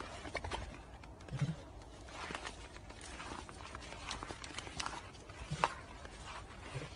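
Footsteps crunching on a snowy path at a walking pace, short crisp steps about once a second over a faint steady hiss.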